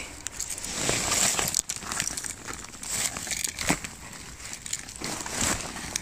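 Dry twigs and brush crackling and rustling underfoot and against the body as a person pushes through scrub undergrowth, with a few sharper snaps.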